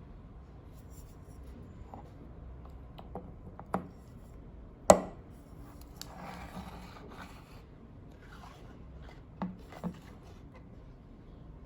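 Handling noises in a small room: a few sharp knocks and taps, the loudest about five seconds in and a quick pair near the end, with a short rustle or scrape just after the loudest knock.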